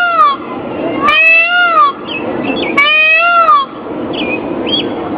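Indian peafowl (peacock) calling: loud, meow-like wailing calls, each rising and then falling in pitch, coming about every second and a half, followed by fainter short chirps.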